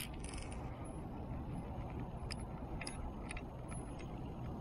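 Spinning reel being cranked by hand, its mechanism giving a few scattered light clicks over a steady low rumble.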